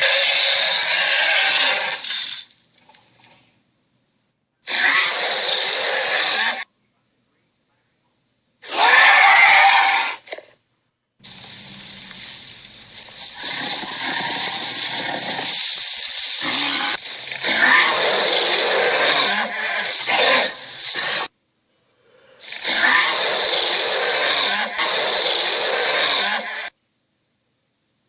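Tiger snarling in a series of harsh, raspy bursts of about two seconds each, cut apart by dead silence, with a longer run of about ten seconds of snarls in the middle.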